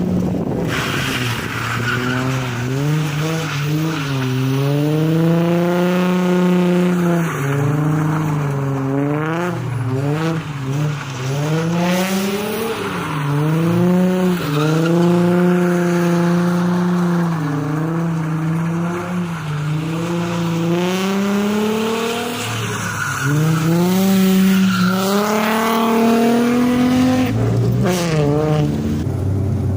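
VT Holden Commodore engine revving hard through skids, its pitch rising and falling again and again, with tyres squealing.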